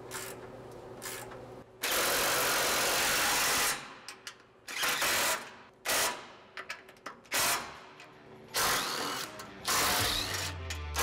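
A hand socket ratchet clicks as it turns a bolt, then a cordless DeWalt driver runs down the bolts: one long burst of about two seconds, then several short bursts as each bolt is snugged tight.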